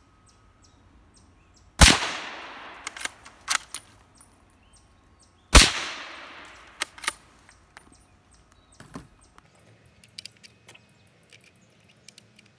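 Two shots, about four seconds apart, from a suppressed .308 Winchester Remington 700 AAC-SD bolt-action rifle fitted with an AAC 762-SDN-6 suppressor, firing 147-grain supersonic factory ammunition. Each shot is followed by a few sharp metallic clicks of the bolt being worked.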